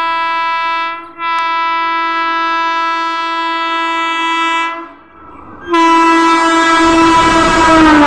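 Horn of an Indian Railways WAP-5 electric locomotive blaring as it approaches at high speed: a long blast broken briefly about a second in, a short gap near the five-second mark, then a louder blast whose pitch drops as the locomotive passes near the end, with the rush of the train rising under it.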